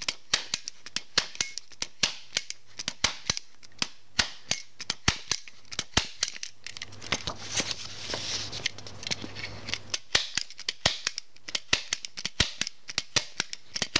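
MAX HD-10FL twin-lever mini-stapler being pressed again and again, stapling through a 20-sheet stack of paper: a run of sharp clicks, about three a second, with paper rustling for a few seconds in the middle.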